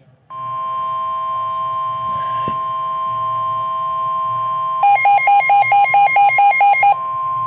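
NOAA Weather Radio 1050 Hz warning alarm tone sounding steadily, the signal that a warning message follows. For about two seconds in the middle it is joined by a louder, rapid pulsing beep of about five beeps a second.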